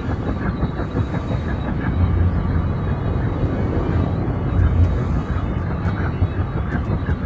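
Attack helicopter running, its rotor and engine noise steady and heaviest in the low end, swelling slightly about two and five seconds in.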